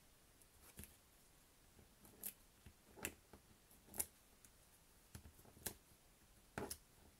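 Faint, sparse clicks of metal tweezers and paper: foam adhesive dots being picked off their backing and pressed onto a small paper label, about six short ticks roughly a second apart.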